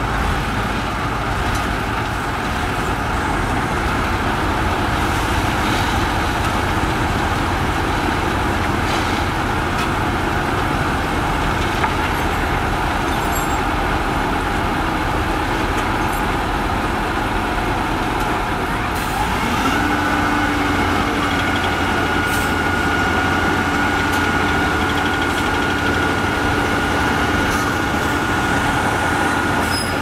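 Heavy diesel road-paving machinery running steadily. About two-thirds of the way through, a new engine tone rises in pitch and then holds steady.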